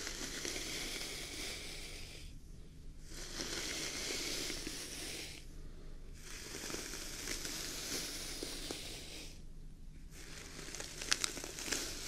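A brush drawn slowly through a long, thick beard close to the microphone: about four long, crackly rustling strokes with short pauses between them, and a few sharp crackles near the end.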